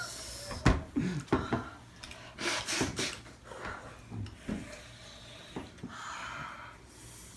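Scattered light knocks and rubbing noises, with hard breaths and sniffs in between.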